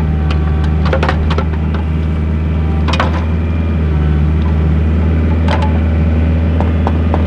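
Bobcat 430 mini excavator's diesel engine running steadily as the boom and bucket work, with a handful of sharp knocks and cracks from the bucket digging out rock and dirt.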